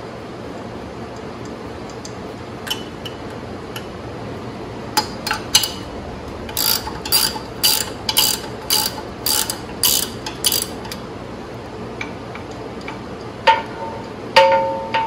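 Ratcheting 3/4 inch wrench clicking in a steady run of about two clicks a second as it backs off the hub nuts on a tracked mower's axle, then two louder metal clinks with a brief ring near the end.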